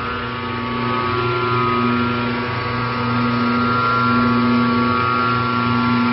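Electric motor and worm gearbox of a feed mixer running steadily: a constant hum with a higher steady whine above it, unchanging in pitch.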